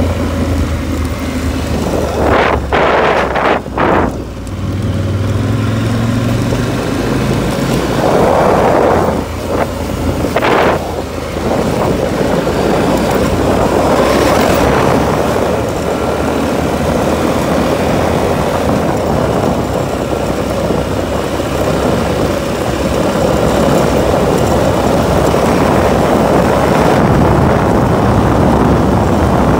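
An off-road vehicle's engine runs under way on a dirt trail, with tyre and wind noise over it. The engine swells a few times in the first ten seconds or so, then settles into a steady run.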